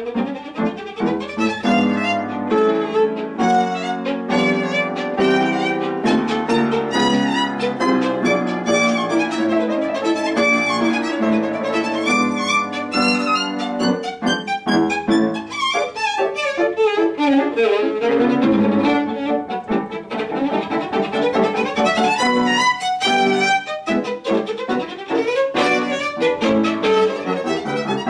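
Solo violin playing fast, busy passages of a concerto finale, with piano accompaniment.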